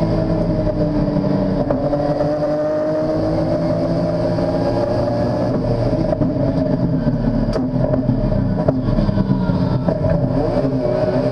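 In-cabin sound of a race car's modified BMW S54 straight-six running hard, its note changing in the second half as the car slows for a corner. Two sharp clicks come through partway through.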